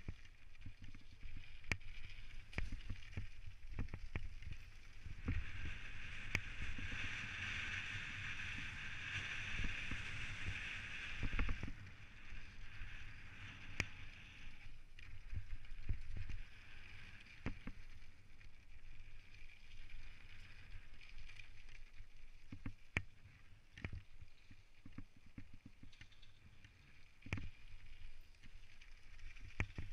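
Specialized Stumpjumper mountain bike descending a rough gravel trail: the tyres roll over loose stone and the bike takes many sharp knocks and rattles from the bumps over a low rumble. A steadier hiss swells from about six to twelve seconds in and comes back more faintly near the end.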